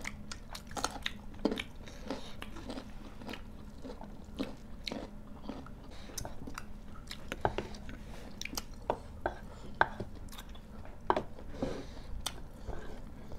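People chewing and crunching food close to the microphone, including bites of raw carrot sticks: irregular short crunches and mouth sounds with no talking.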